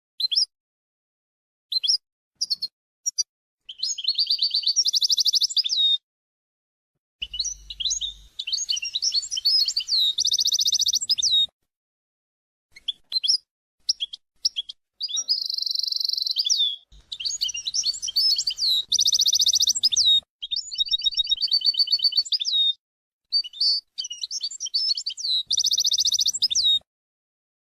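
Birdsong: phrases of high chirps, whistles and fast trills, each a few seconds long, separated by short silences.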